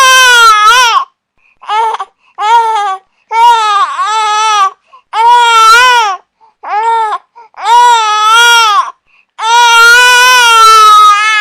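Infant crying in a string of about eight wails. Each wail lasts about half a second to two seconds, with short silent gaps for breath between them.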